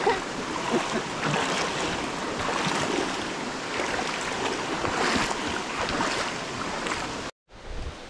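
Steady rushing noise that cuts off abruptly near the end, leaving a much quieter background.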